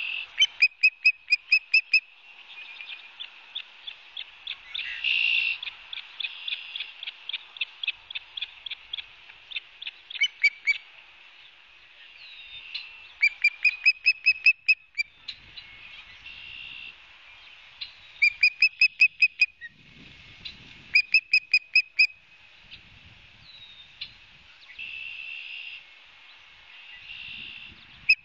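Osprey calling: loud runs of sharp, whistled chirps, about six a second, repeated every few seconds, with softer, slower chirping between the runs. These are alarm calls, given while the osprey harasses a black-crowned night heron near the nest.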